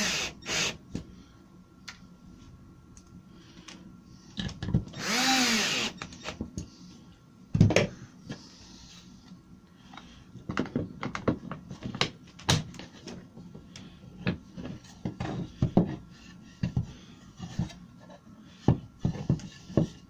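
Cordless drill-driver driving screws into a concealed cabinet hinge on a melamine door: a burst ending right at the start, and another of about a second and a half around five seconds in, its motor pitch rising and falling. After it, a knock and a string of light clicks and taps as the metal hinge and the boards are handled.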